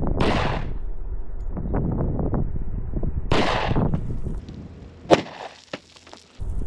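Shots from a Sig Sauer P220 Legion 10mm pistol: two broad blasts about three seconds apart, then a sharp crack about five seconds in, with a low rumble of wind on the microphone between them.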